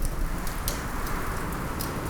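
Wood fire crackling in a fireplace, with a few sharp pops over a steady rushing wind that swells slightly mid-way.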